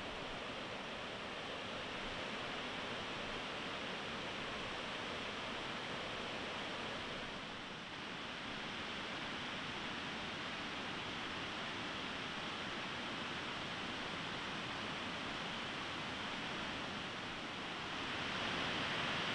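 Steady rushing of the Kings River over shallow rapids, an even roar of water that dips briefly about eight seconds in and grows a little louder near the end.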